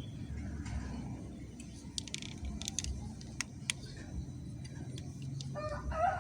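A scatter of light metallic clicks and taps, like small parts and tools being handled, over a steady low rumble. Near the end a rooster starts to crow.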